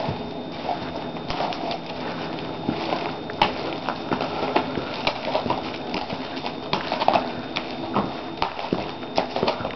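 A horse walking on a lead over grass and gravel: irregular soft hoof steps and small knocks, with the handler's footsteps close by.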